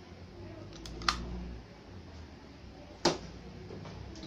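Two sharp plastic clicks about two seconds apart from a mains plug and a power strip being handled and plugged in, over a low background hum.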